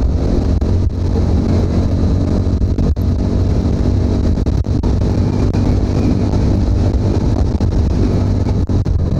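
TVS Apache RTR 200's single-cylinder engine running steadily while the motorcycle is ridden along the road.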